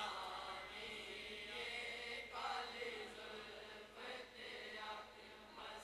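Faint, indistinct group voices of a seated congregation chanting along together, soft swells rising and falling rather than one clear voice.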